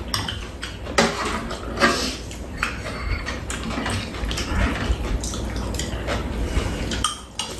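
Metal spoons clinking and scraping against ceramic bowls of food, a string of small irregular clicks, over a steady low hum.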